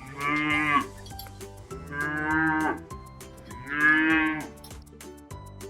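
A cow mooing three times, each moo just under a second long.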